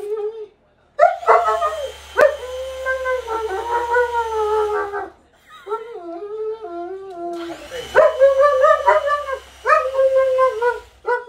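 German Shepherd-type dog whining and howling in long, wavering cries that slide up and down in pitch, broken by two short pauses.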